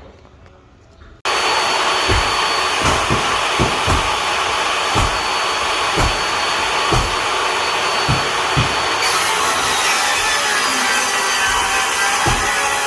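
Table saw starting abruptly about a second in and running steadily as hardwood floorboard is ripped into thin slip-tongue spline strips, with scattered low thumps.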